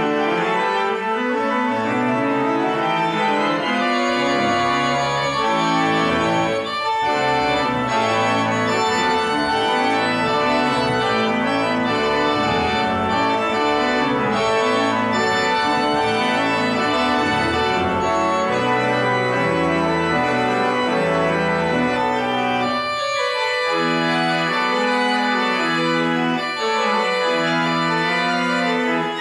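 Church organ playing sustained chords that change steadily, with the texture thinning to lighter chords for the last several seconds.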